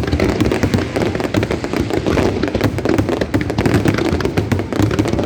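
Fireworks display going off: a dense, continuous barrage of bangs and crackling.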